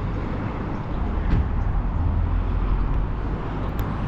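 Steady outdoor street noise: an even low rumble with a faint hiss above it, in the manner of road traffic.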